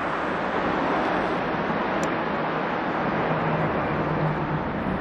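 Steady outdoor ambient rush with a faint low hum underneath, holding at an even level, and one small tick about two seconds in.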